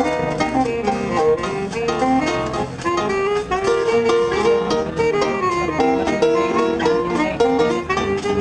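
A school orchestra playing live: a brisk piece of many short notes in quick-moving melodic lines, with strings prominent.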